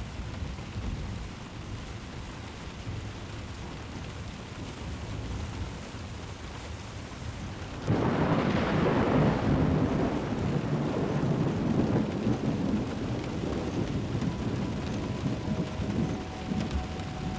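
Thunderstorm: steady rain, then about halfway through a sudden loud thunderclap that rolls on and slowly fades.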